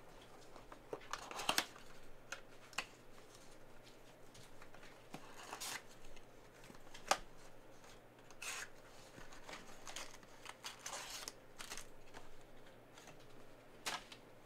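Cardboard of a Panini Prizm basketball blaster box being opened and its foil-wrapped card packs slid out and set down: quiet scattered rustling and scraping with a few sharp clicks.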